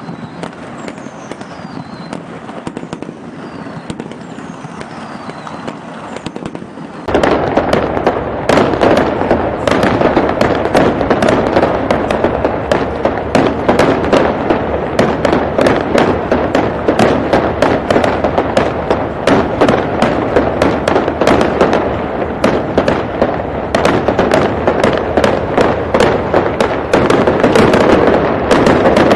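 Fireworks going off. For the first several seconds there is a quieter crackle with a few faint falling whistles, then about seven seconds in the sound jumps abruptly to a loud, dense barrage of rapid bangs and crackling.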